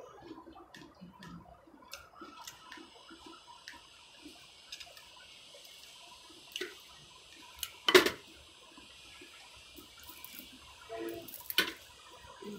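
Wet chewing and lip-smacking of someone eating crab and salad with their fingers, with small clicks throughout and two sharp clinks, a loud one about eight seconds in and another near eleven and a half.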